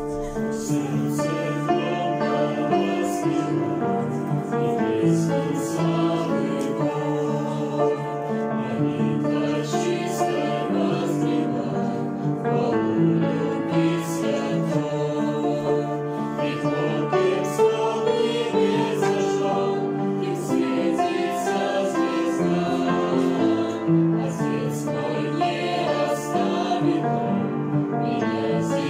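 Mixed choir of young women's and men's voices singing a hymn in harmony with piano accompaniment, the notes held and moving together phrase by phrase.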